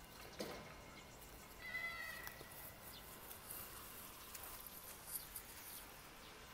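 American Staffordshire Terrier puppy giving a short, high whine about two seconds in while play-fighting with a littermate, over faint scuffling in the grass.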